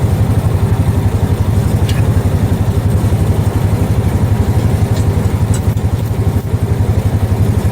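Small gasoline engine running steadily with a fast, even low pulse, and a few faint clicks.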